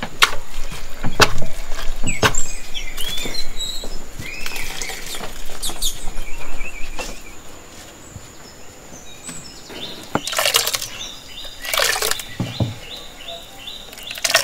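A hand kneading and squeezing freshly grated coconut with water in a clay bowl, wringing out the coconut milk for making coconut oil. It gives irregular wet squelches and crunches, with the loudest squeezes near the end. Birds chirp in the background.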